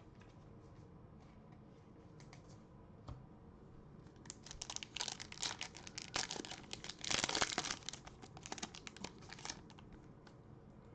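A 2021 Bowman card pack's foil wrapper being torn open and crinkled. A few faint handling clicks come first, then a dense run of crackling from about four seconds in until near the end.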